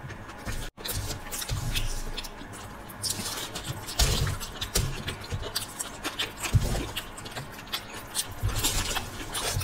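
Close-miked eating sounds: metal spoons scraping and clinking on aluminium foil as macaroni is scooped up, with irregular crackles and clicks and wet chewing. There are scattered low thumps, the loudest about four seconds in.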